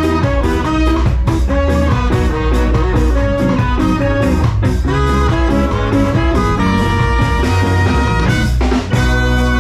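Live reggae band playing: a horn section over electric guitar, bass and drum kit, the horns holding longer notes near the end.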